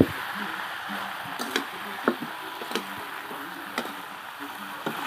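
Metal spatula stirring and scraping chicken in a metal pan, clinking against the pan at irregular moments about once a second, over a steady sizzle as the meat is sautéed in its spice paste.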